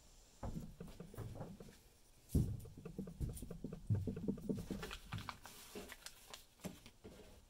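Clear plastic parts bag and paper instruction card being handled: irregular crinkling and rustling with small knocks. The loudest knock comes about two and a half seconds in.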